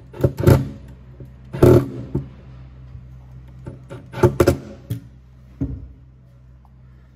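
A Milwaukee cordless drill/driver run in four short bursts, driving the mounting-ring screws up to press a garbage disposal's sink flange down into its putty. Guitar music plays steadily underneath.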